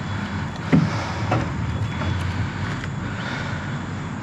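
A motor vehicle's steady running noise, a low rumble, with two short knocks a little under a second and about a second and a half in.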